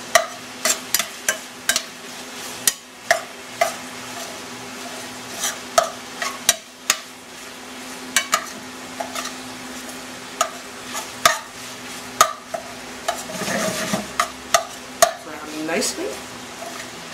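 Ground Italian sausage sizzling as it fries in a stainless steel pan, while a metal slotted spoon scrapes and clacks against the pan in irregular strokes as the meat is stirred and broken up.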